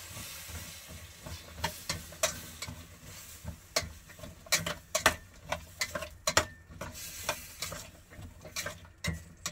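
Metal slotted spatula stirring vegetables in water and tomato paste in a stainless steel pot, clinking and scraping against the pot irregularly about once or twice a second. Underneath is a steady sizzling hiss from the hot pot.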